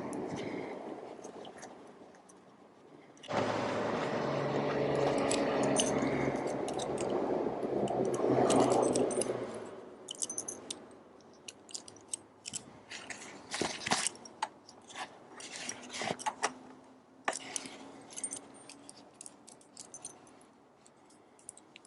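A steady mechanical hum for about six seconds that stops abruptly, followed by a run of sharp metallic clicks and clinks like hand tools or small metal parts being handled.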